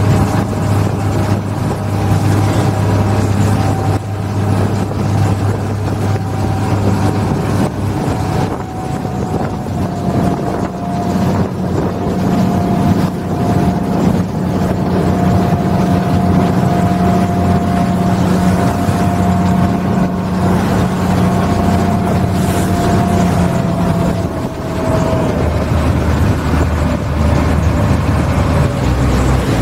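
Small harbour ferry's engine running steadily with water noise, a low hum whose pitch shifts about eight seconds in and again near the end.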